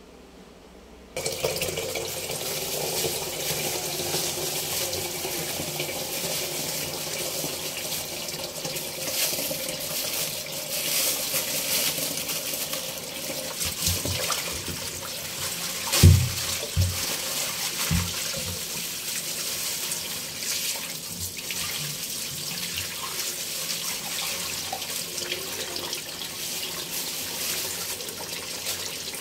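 Tap water pouring into a metal bowl in a steel kitchen sink while raw fish pieces are rinsed by hand, splashing. It starts about a second in. A few knocks come near the middle, the loudest a little past halfway.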